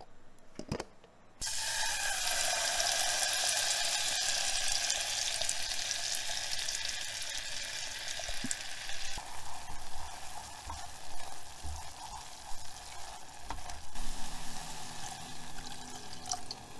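Chopped red chillies sizzling in hot oil in a pot, after a single knock; the sizzle starts suddenly and eases partway through. Near the end water is poured into the pot over the frying.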